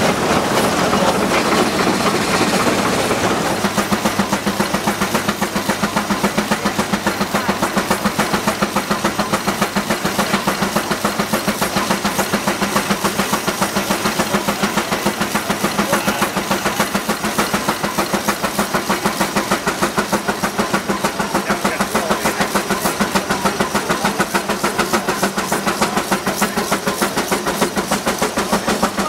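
Steam traction engine running on the belt, its exhaust beating in a steady, fast rhythm. The first few seconds are a louder, rougher rush before the beat settles.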